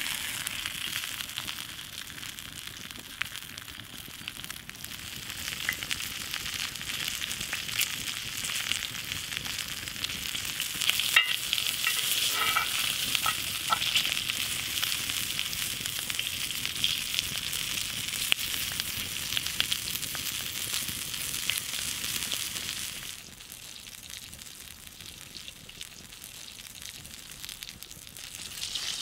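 Bone-in ribeye steak sizzling in a hot cast-iron skillet, a steady frying hiss with scattered pops, thickest around the middle. The sizzle drops to a quieter level well past halfway and picks up again near the end.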